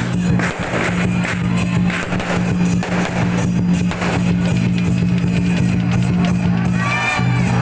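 Music with drums and guitar over sustained low bass notes, with a steady beat.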